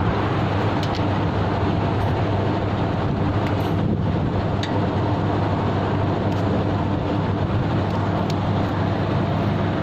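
Steady low mechanical hum of running machinery, an unchanging drone, with a few faint clicks over it.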